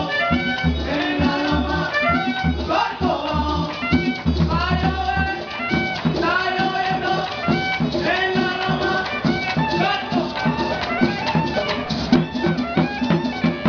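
Live traditional cumbia ensemble playing: singing voices and a melodic line over drums and shaken rattles. Deep, regular drum beats sound for the first few seconds and then drop out.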